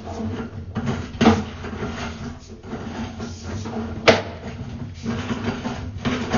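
Sewer inspection camera's push cable being fed into a cast iron drain line: irregular rattling and scraping with two sharp knocks, over a steady low hum.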